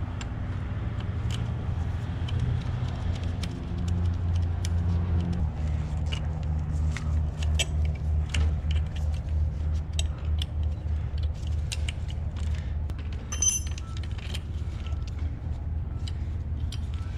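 Light metal clicks and taps from a 10 mm wrench and throttle linkages being worked loose on a motorcycle's carburetors, over a steady low rumble that pulses evenly in the second half.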